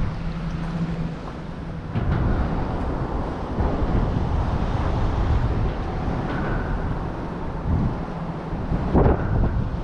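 Wind buffeting the microphone as a steady low rumble, with a short, sharp noise about nine seconds in.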